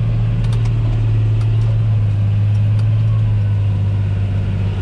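John Deere 8100 tractor's six-cylinder diesel running steadily under load, heard inside the closed cab while it pulls a disc cultivator through the soil. A few faint light clicks sound over the steady drone in the first few seconds.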